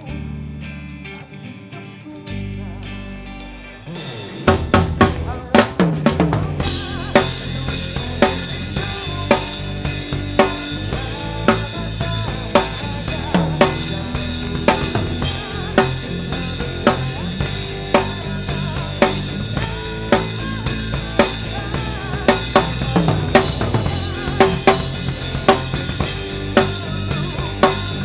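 Drum kit played along with a band's song: after a few seconds of quieter music the drums come in with a tom fill, then settle into a steady groove of bass drum, snare and cymbals.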